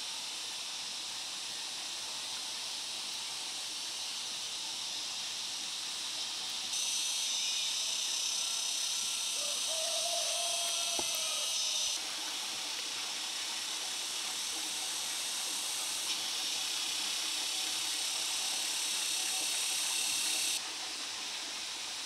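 Rural outdoor ambience: a steady high hiss, with two spells of a louder, higher buzzing that starts and stops abruptly, one in the first half and one in the second. A faint short call rises and falls about ten seconds in, and a single click follows.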